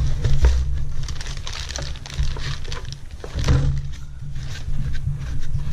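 Handling and working a 4-inch Groz drill press vise: scattered metal clicks and knocks, the loudest about three and a half seconds in, over a steady low hum.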